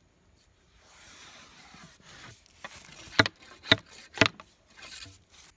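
Rammer rod sliding and scraping down the bore of a black-powder cannon, then three sharp knocks about half a second apart as the solid PLA cannonball is rammed home. The rod scrapes again briefly near the end.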